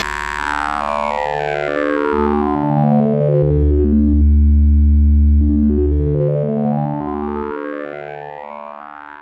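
Waldorf Microwave Mk1 hybrid wavetable synthesizer playing a sustained pad over slowly stepping low notes, its overtones sweeping down over the first few seconds and then back up. The sound fades down over the last couple of seconds.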